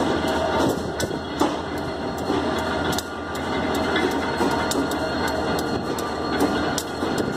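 Diesel locomotive idling with a steady low hum as it turns on a railroad turntable, with irregular clicks and knocks from the turntable's wheels and mechanism.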